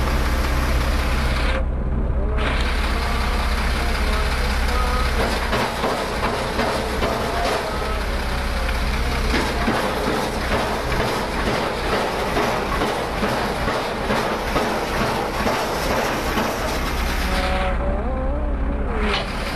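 Crane engine running loud and steady, heard from inside the operator's cab, with a deep hum and a dense rattling clatter.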